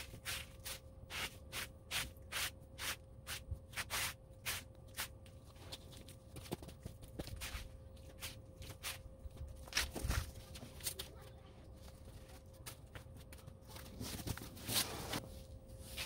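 Loose potting soil being scraped up and handled on a cardboard sheet: a run of short taps and scuffs, two or three a second at first, then sparser. About fifteen seconds in, a longer rustling slide as soil is tipped off the cardboard into a fabric grow bag; a faint steady tone underneath.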